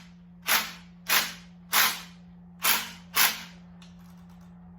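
Five short, loud bursts from a compressed-air tool, each cut off after about a quarter second, with a steady low hum underneath.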